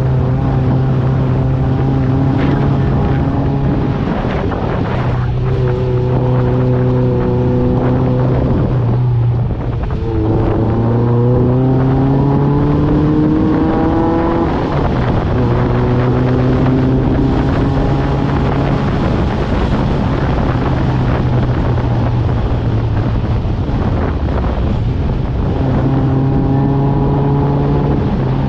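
Engine of a side-by-side off-road vehicle driving along a dirt trail, its note holding level with a few shifts in pitch; about ten seconds in it dips, then climbs steadily for several seconds as the vehicle speeds up. Wind rushes over the microphone.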